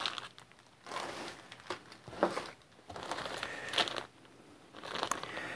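Clear plastic packaging bags crinkling and rustling as they are handled, in short irregular bursts with brief pauses between.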